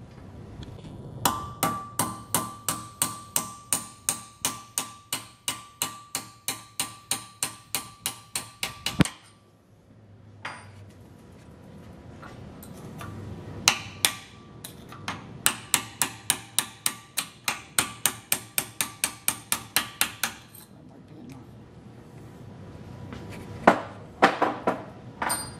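Hammer blows on a pin punch, driving the roll pin out of the hand wheel hub on a machine flywheel's shaft. The steel strikes come steadily at about three a second with a metallic ring. There are two long runs split by a pause, and a few last blows near the end.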